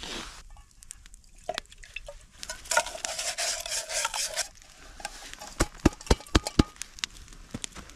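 Spoon scraping and stirring around a camp pot of curry and rice, then a quick run of sharp clinks and taps of the spoon against the pot.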